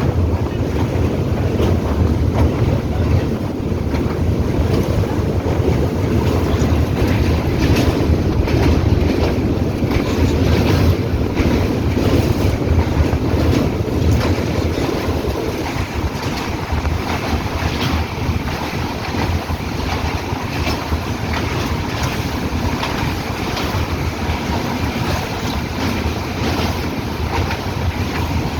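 Express train running at speed across a river bridge, with a steady loud rumble of wheels on rail and wind rushing over the microphone.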